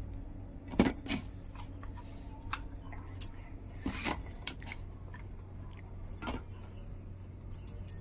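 Stainless-steel mixer-grinder jar knocking and scraping against a steel bowl as thick ground urad dal batter is scooped out of it by hand, with bangles clinking. Scattered sharp clinks, the loudest about a second in and again around four seconds in, over a low steady hum.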